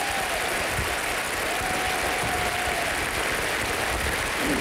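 A large audience applauding: steady, dense clapping from a packed hall.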